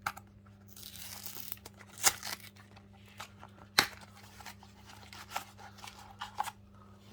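A Topps Match Attax eco pack being torn open: a short rip about a second in, then a few sharp clicks and crinkles as the packaging is pulled apart and handled.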